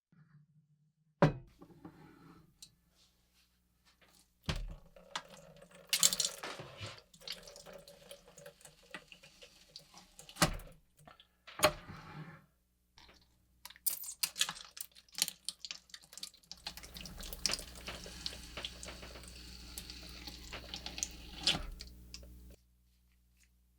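Water running from a tap into a sink, with sharp knocks and clatter from handling; a steady run of water for several seconds near the end.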